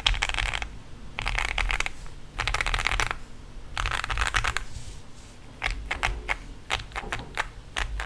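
Zoom65 mechanical keyboard with lubed Gateron Yellow Cap V2 Milky linear switches and Cherry-profile keycaps. First come four quick bursts of keys rolled in fast succession, asdf-style, about a second apart. After about five seconds they give way to slower, separate keystrokes.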